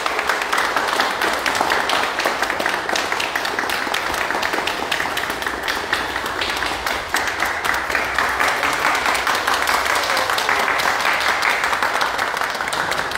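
A small group of people clapping their hands in steady, continuous applause.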